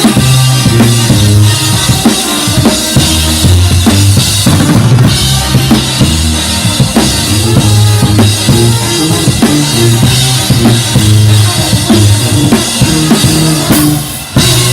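A brass band playing live with a drum kit driving the beat under a moving bass line. Near the end the band stops for a moment, then comes straight back in.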